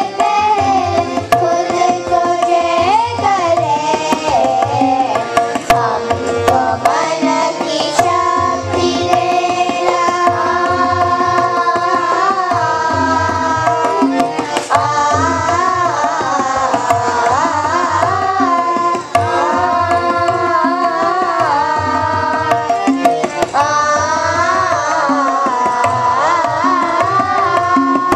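Children's chorus singing a Hindu bhajan together, accompanied by tabla drumming a steady rhythm.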